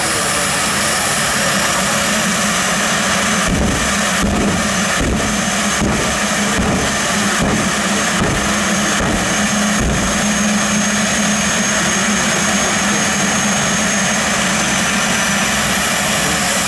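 Jet turbine engine of a jet-powered pickup truck running at idle with a steady high whine over a dense rush. For several seconds in the middle it gives a regular run of short thumps, about one a second, before settling back to a steady idle.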